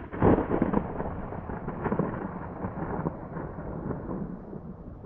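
Thunder from a nearby lightning strike: a sudden crackling clap right at the start, then a long rumble that slowly dies away.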